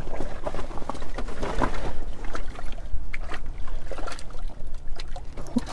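Wind rumbling against the microphone and the ice shack, a steady low roar that rises and falls, with scattered light knocks and clicks of handling.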